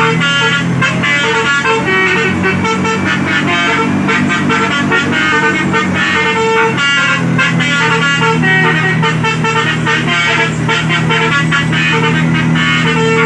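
Telolet basuri multi-tone bus horn playing a fast tune of short, quickly changing notes, over a steady low hum.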